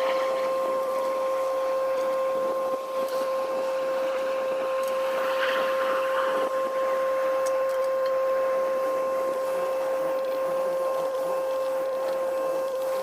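Excavator running, with a steady high-pitched whine over the machine's noise and a louder rush of noise about five to six seconds in.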